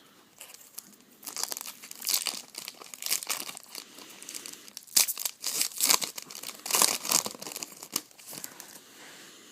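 Foil trading-card pack wrapper being torn open and crinkled by hand, in a run of irregular crackles that are loudest past the middle.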